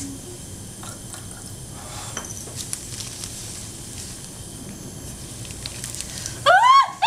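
Steady hiss with faint crackles as a paper towel is held in a lit Bunsen burner's flame and catches fire. About six and a half seconds in, a person lets out loud, shrill yelps, several in quick succession, each rising and falling in pitch: alarm at the burning paper.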